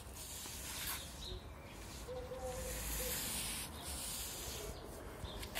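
Wide stiff-bristled brush on a long pole scrubbing wet limewash across the top of a plastered wall: a hissing scrub in a few long strokes with short breaks between them.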